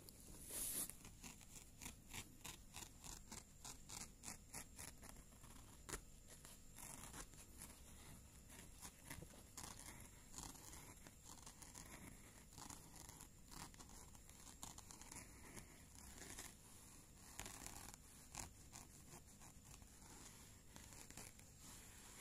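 Near silence with faint rapid scratching strokes, several a second, through the first half, then faint scattered rustling.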